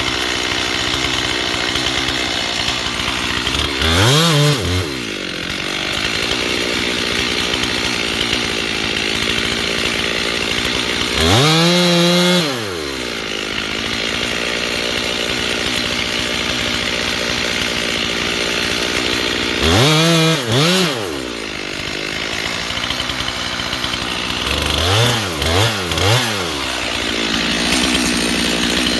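Chainsaw running at high throttle while cutting a tree during felling. It runs steadily, and the engine pitch swings up and back down about four times.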